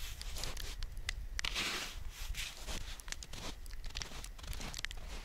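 Snow crunching and scraping, about one or two uneven crunches a second, as a man shovels and steps about in packed snow.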